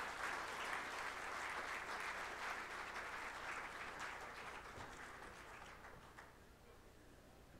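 Audience applauding at the end of a speech, the clapping thinning out and dying away about six seconds in.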